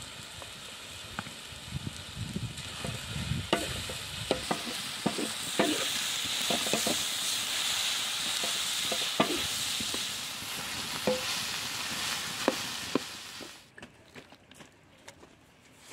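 Minced camel meat frying and sizzling in a black steel pan over a wood fire, with a utensil clicking and scraping against the pan as it is stirred. The sizzle grows louder a few seconds in and cuts off suddenly near the end, leaving only faint small ticks.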